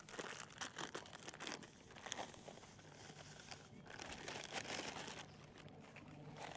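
Plastic groundbait packet crinkling as it is handled and tipped out, dry groundbait pouring into a plastic bucket, in a run of small irregular crackles.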